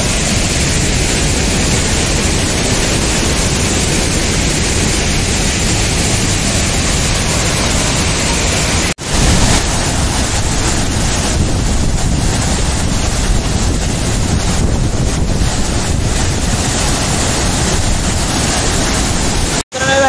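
Waterfall tumbling over rock ledges into a pool: a loud, steady rush of falling water. The rush breaks off for an instant about nine seconds in and again near the end.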